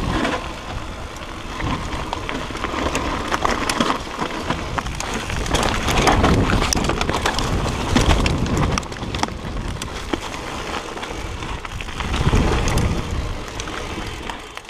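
Propain Tyee 650B enduro mountain bike riding over a rough trail. Tyre noise runs under a steady clatter of knocks and rattles, with wind rumbling on the camera microphone.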